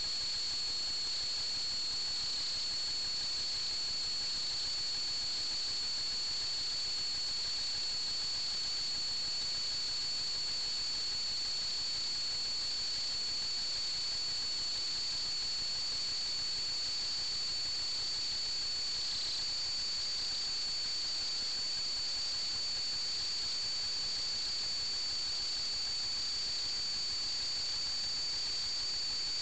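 Steady electronic hiss with a constant high-pitched whine that never changes in pitch or level, the kind of static carried on an FPV video link's audio.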